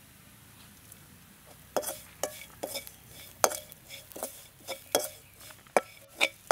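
Metal slotted spoon stirring fried pieces in a steel pan, knocking and scraping against the pan's side in a string of sharp ringing clinks, about two a second, starting about two seconds in.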